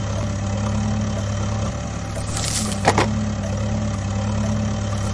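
A vehicle engine idling steadily with a low, even hum, and a single sharp click about three seconds in.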